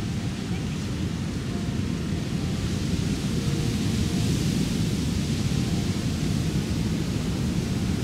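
Ocean surf breaking on a rocky shore: a steady low rushing noise that swells as a bigger wave crashes about four seconds in.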